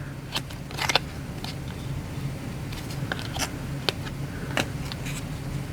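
Baseball trading cards being handled and flipped through by hand: light slides and soft clicks of card stock, irregular and a second or so apart, over a steady low room hum.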